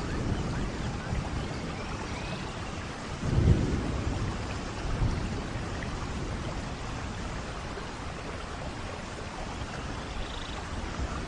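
Heavy rain falling steadily, with a short low rumble about three and a half seconds in.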